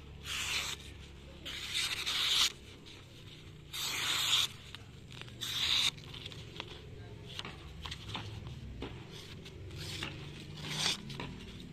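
Karambit blade slicing through a hand-held sheet of printer paper, testing its sharpness: four short, dry rasping cuts in the first six seconds, then softer paper rustling and small clicks.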